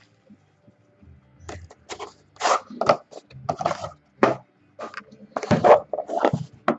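Irregular crinkling, tearing and scraping of plastic shrink-wrap and cardboard as a sealed trading-card box is opened and its pack pulled out.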